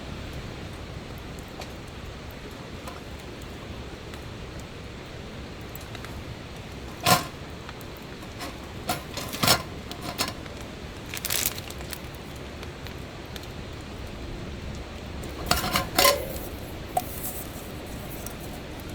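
Cookware and utensils clinking and clattering in a few separate bursts, the loudest about seven seconds in and a pair near the end, over a steady low background noise.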